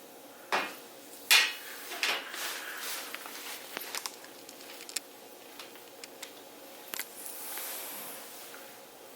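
Household handling sounds: three sharp clatters in the first couple of seconds, then scattered light clicks and a brief soft rustle.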